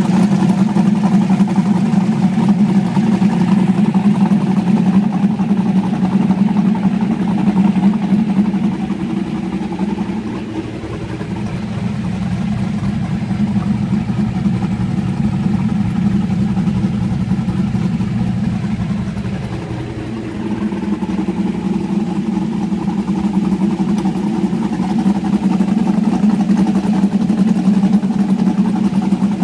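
Ultra4 race buggy's LSX454 V8 engine running steadily, dipping slightly in level and pitch about ten seconds in and again around twenty seconds.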